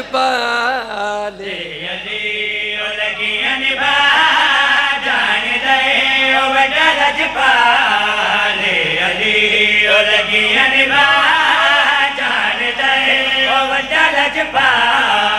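Men chanting a devotional Punjabi qasida in praise of Ali into microphones, in long melodic lines whose pitch glides up and down without pause.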